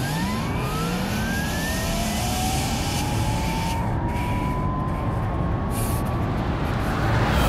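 Porsche Taycan electric drive whining under hard acceleration: several rising whines that climb quickly and then level off over about six seconds, over tyre and road noise.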